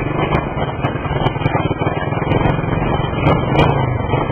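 A motor vehicle's engine running steadily with a low hum, with a few faint clicks and rattles.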